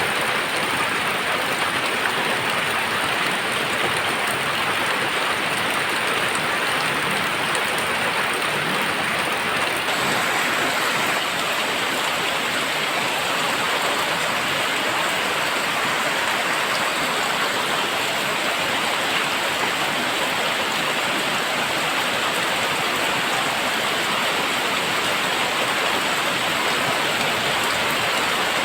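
Very heavy rain pouring down in a dense, steady hiss of countless drops.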